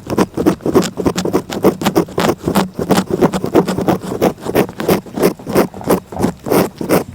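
A cat licking in quick, even strokes, about four laps a second.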